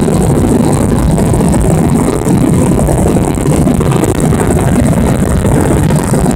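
Boeing 737 jet engines at full takeoff thrust during the takeoff roll, a loud steady roar heard from inside the cabin.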